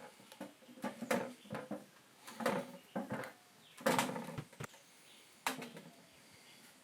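Pieces of 2x4 scrap wood being handled and pressed together on protruding screw tips: a series of irregular knocks and scrapes, wood on wood.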